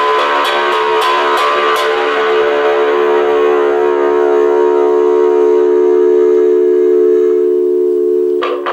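Homemade whamola, a one-string electric bass struck with a wooden spoon, holding one long amplified note at a steady pitch, with a few light clicks in the first two seconds. The note stops suddenly near the end as the player's hand comes to the string at the pickup box.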